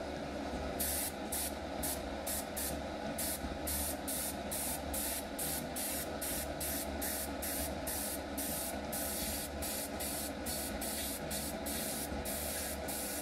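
Badger 200 NH single-action airbrush spraying paint in short hissing bursts, about two a second, as the trigger is pressed and let go. A steady low hum runs underneath.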